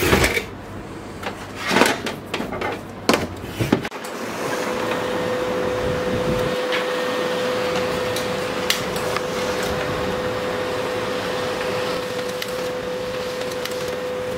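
A few knocks and clicks as plastic printer panels are handled and fitted. About four seconds in, a Canon LBP2900B laser printer starts running and prints, with a steady mechanical whir and a constant hum.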